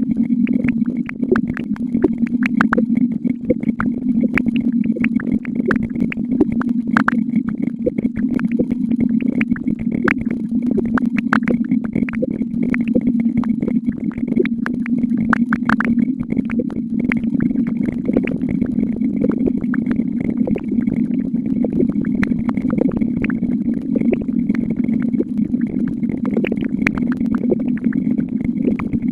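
Counting sound effects firing so rapidly that they merge into a steady low buzz, with a fainter high tone and many sharp clicks scattered irregularly throughout.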